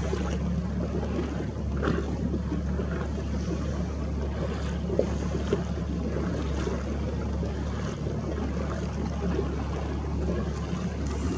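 A boat's motor running steadily, a low even drone under a steady hiss.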